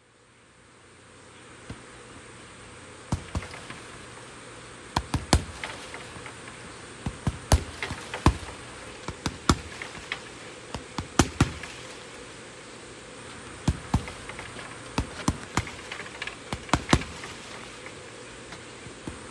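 Punches landing on a hanging Everlast heavy bag: irregular sharp thuds that start about three seconds in, often in quick combinations of two or three. A steady high buzz runs underneath.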